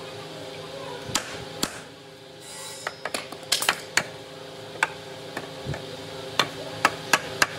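Hammer blows on a wooden door frame, driving a stile down onto the rails' tenons to seat the joints: a string of sharp knocks at uneven spacing, several in quick succession at times. A steady hum runs underneath.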